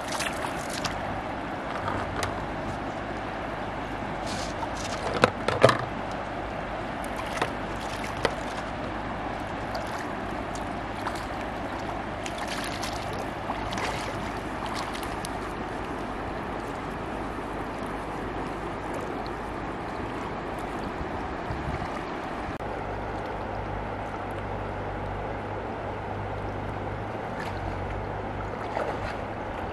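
River water lapping and sloshing at the bank, steady throughout, with a few sharp knocks about five to six seconds in and twice more soon after.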